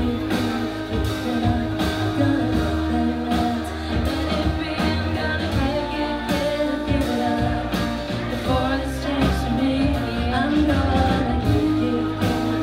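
A live band playing a song: two women's voices singing over strummed acoustic guitars, electric bass and keyboard.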